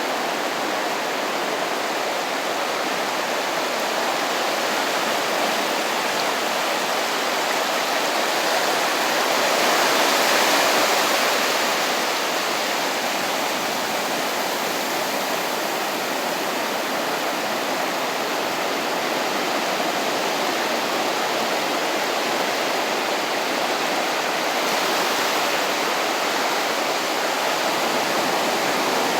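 Gentle surf from a calm sea washing onto a beach: a steady rush of water that swells louder about ten seconds in as a wave breaks and runs up the shore, then settles back.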